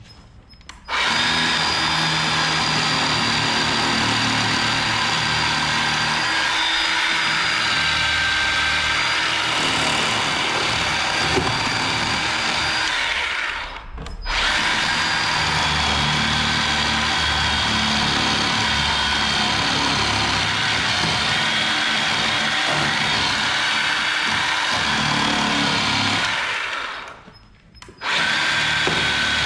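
Cordless battery chainsaw (Bauer, Harbor Freight) running and cutting into a boat's transom, with a steady high whine over the chain noise. It runs in three long stretches, stopping briefly about halfway through and again near the end before starting back up.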